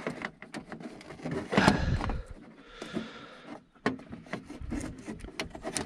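Clear plastic car bulb-kit case being handled and opened, with a string of small plastic clicks and knocks and a louder rubbing scrape about two seconds in.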